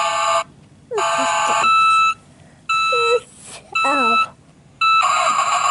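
Electronic sound effect from a Kid Connection light-and-sound toy recycling truck, switched on by its side buttons: a harsh, buzzing alarm-like tone that sounds in about five bursts with short silent gaps between them.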